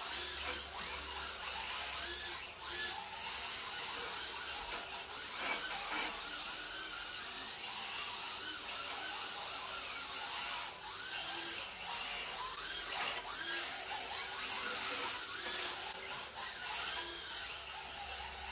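Electric motors of 1/10 scale RC drift cars whining, the pitch rising and falling again and again as the cars accelerate and ease off through the drifts, over a steady hiss.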